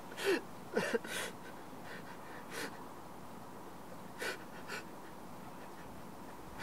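A person breathing hard in short, ragged gasps: about six irregular breaths, a couple of them catching in the throat.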